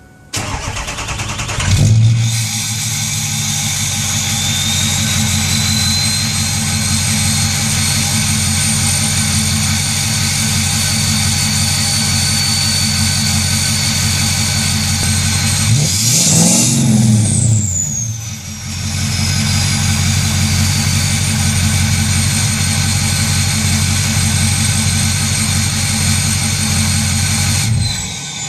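A 2006 Ford F350's 6.0 Powerstroke V8 turbo diesel cranks for about two seconds, catches, and idles through a 4-inch turbo-back exhaust. Over the idle a high turbo whistle rises and then holds steady. A single rev past the middle sends the engine and the whistle up and back down, and the engine is shut off near the end, leaving the turbo whistle winding down.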